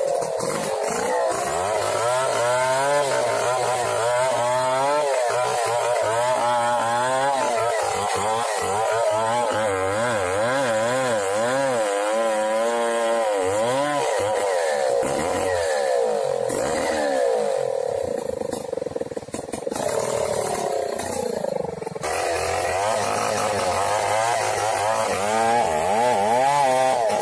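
Two-stroke chainsaw running at high revs while cutting into a large tree trunk, its engine pitch rising and falling continually as the chain loads and clears in the wood, with a softer stretch about two-thirds of the way through.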